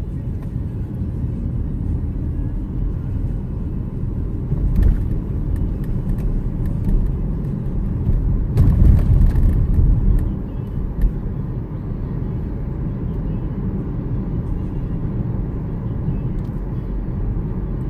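Steady road and engine noise heard inside a moving car's cabin, swelling louder for a couple of seconds about halfway through.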